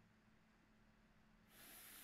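Near silence with faint room tone, then about one and a half seconds in a man's voice begins a drawn-out 'f' hiss: the held opening consonant of the word 'flutter', stretched for pronunciation practice.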